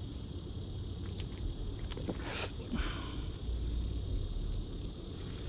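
Steady high-pitched insect chorus, a continuous trill, over a low rumble, with a brief rustle a little over two seconds in.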